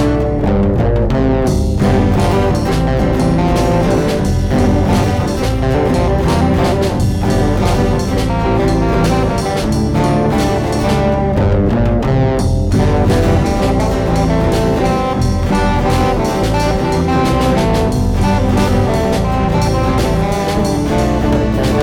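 Intro soundtrack music, loud and continuous.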